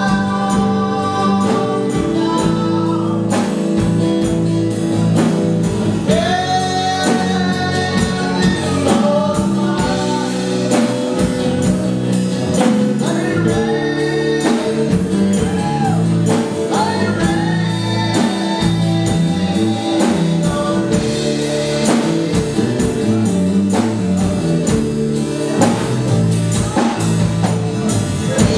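Live gospel worship band playing: drum kit keeping a steady beat under electric and acoustic guitars, with a voice singing over them.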